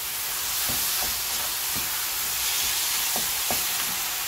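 Minced pork, vegetables and gochujang sizzling in a frying pan while being stirred with a wooden spatula. The spatula scrapes and knocks against the pan several times.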